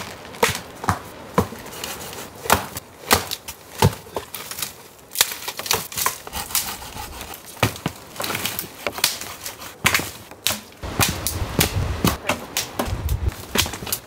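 Dead branches snapping and cracking as firewood is broken by hand and under a boot: a string of sharp cracks, coming faster in the second half, with a few dull thumps near the end.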